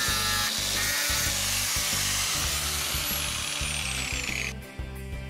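Angle grinder with a cutting disc cutting through a rusty steel bracket, a loud steady hissing grind. Over its last two seconds a high whine falls in pitch, and the sound stops abruptly about four and a half seconds in as the cut piece drops free.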